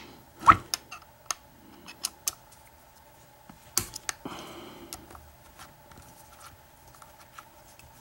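Small metal clicks and taps as a disassembled American 2500 puck lock, a loose screw and an Allen wrench are handled, with a louder knock about half a second in and a short rubbing sound about four seconds in.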